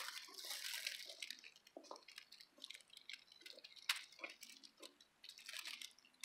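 Faint scattered crackles and ticks in dry leaf litter, with one sharp click about four seconds in and a brief rustle near the end.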